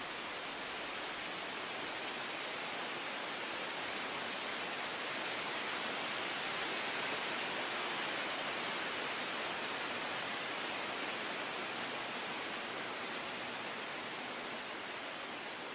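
Steady rushing nature ambience, a hiss-like noise with no distinct events, swelling gently toward the middle and easing off near the end.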